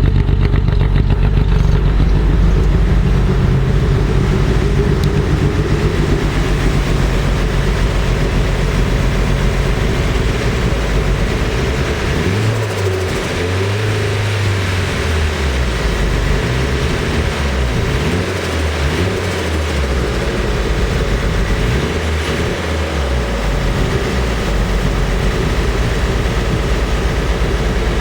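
Nissan SR20DET turbocharged inline-four running unevenly with a shaky, misfiring beat, cold and running very rich. Partway through, its pitch starts wandering up and down.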